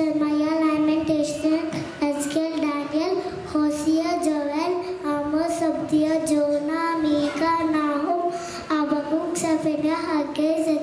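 A young girl singing solo into a microphone, holding long notes and gliding between them.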